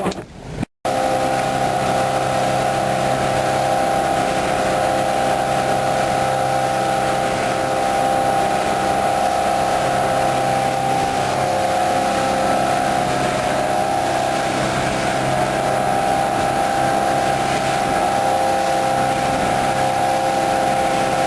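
A 25-foot Sport Craft fishing boat's engine running steadily under way, a constant drone with a steady tone over the rush of hull and water.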